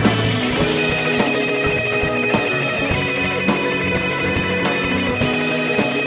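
A band playing an instrumental passage of a folk-rock song, with a drum kit keeping a steady beat under guitars and a long held high note coming in about a second in.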